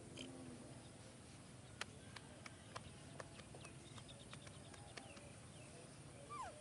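Faint outdoor ambience with scattered sharp clicks, the loudest about two seconds in, a quick run of high chirps around the middle, and one short falling squeak near the end.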